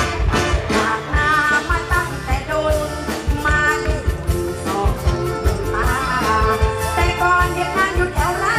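Live Isan mor lam song: a woman sings into a microphone over a band with a steady drum beat.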